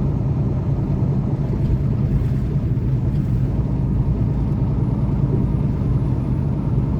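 Steady low drone of a semi truck's diesel engine and road noise, heard from inside the cab.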